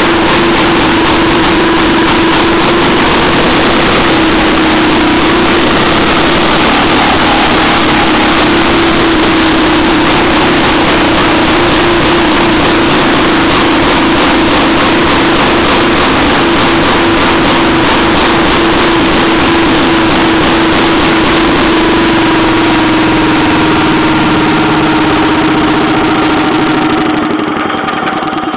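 A 1920s–early 1930s Jacobsen two-stroke reel-mower engine running steadily and well, its magneto driven through bevel gears. Near the end the sound drops slightly and turns uneven.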